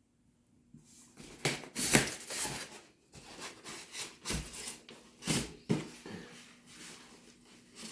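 Irregular rustling and light knocks of model-plane parts and their packaging being handled during unboxing, a handful of short sharp strokes with quiet gaps between.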